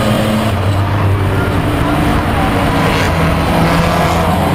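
Engine of a Chevrolet Beretta Eco Stock race car running steadily at racing speed, heard from inside the stripped cabin with road and wind noise.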